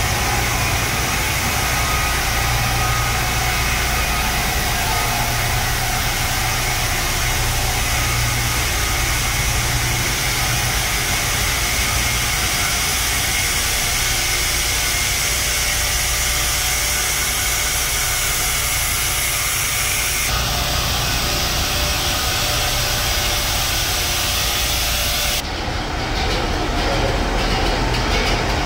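Loud, steady machinery din of a container ship's engine room while under way: a constant low hum under a dense hiss from running engines and plant. About 20 seconds in the hiss shifts, and about 25 seconds in the highest hiss drops away, leaving a deeper rumble.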